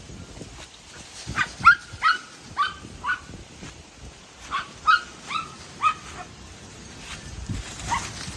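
Dog yipping in two quick runs of short, high barks, each dropping in pitch, about ten in all, with wind rumbling on the microphone underneath.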